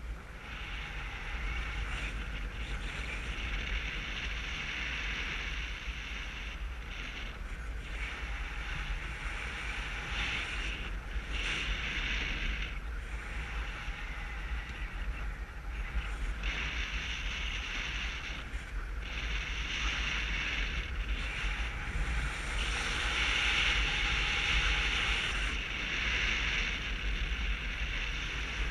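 Wind rushing over a GoPro's microphone in paragliding flight: a steady rush with a deep rumble beneath it, swelling and easing, strongest towards the end.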